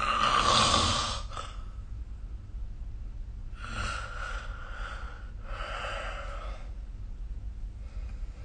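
A sleeping person breathing noisily between snores: one loud, airy breath at the start, then two softer breaths about three and five seconds later, over a steady low hum.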